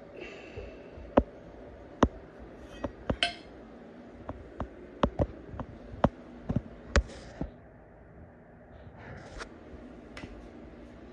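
Irregular sharp clicks, knocks and light clinks of small hard objects being handled, about fifteen at uneven intervals, with a few brief rustles.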